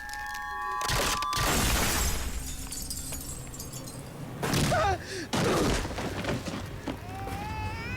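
Television drama soundtrack playing through speakers during a fight: a few loud noisy crashes and swooshes, about a second in and again about four and a half seconds in, with shrill wavering cries between them and a rising cry near the end.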